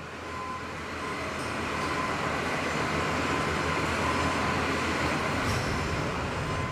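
Steady mechanical rumble and hiss of running machinery, growing louder over the first couple of seconds and then holding level, with a faint steady hum.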